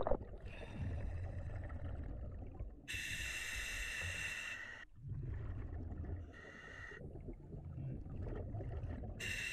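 Scuba diver breathing through an Apeks regulator in an OTS Guardian full-face mask. There is a hissing inhalation about three seconds in and another near the end, and between them a low bubbling rumble of exhaled air.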